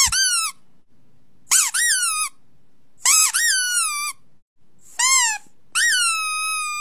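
Pug puppy howling: five short, high-pitched howls, each rising and then falling away. The last one is held longer at a steady pitch.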